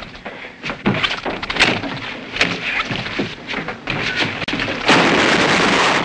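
Cartoon fight sound effects: a rapid run of thumps, knocks and clatters as the mongoose and the cobra thrash against things, ending in a loud, drawn-out crash about five seconds in.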